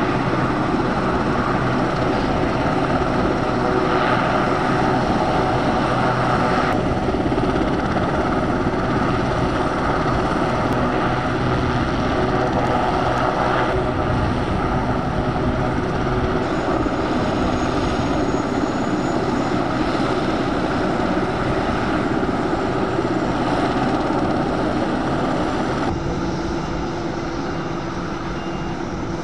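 Westland Sea King helicopter running on the ground with its rotors turning: a steady, loud turbine and rotor noise with a constant whine. The noise eases slightly near the end.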